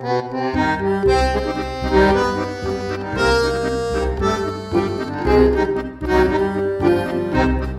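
Background music of held, reedy melodic notes over a steady bass line that comes in about half a second in, with a short break near the end.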